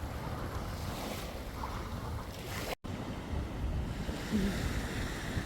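Waves washing on the shore, with wind buffeting the microphone as a low rumble. The sound drops out completely for an instant about halfway through.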